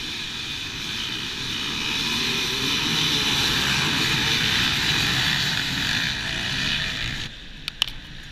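A large pack of dirt bikes accelerating off the start line together, their engines blending into one dense, loud drone that builds over the first few seconds. It drops away suddenly near the end, leaving a few sharp clicks.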